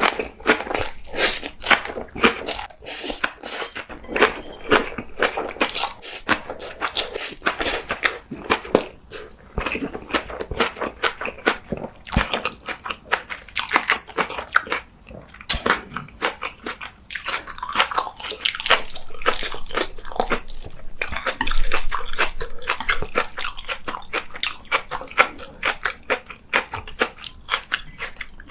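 Close-miked eating of Korean black bean noodles and green onion kimchi: rapid, wet chewing and biting sounds, dense and continuous.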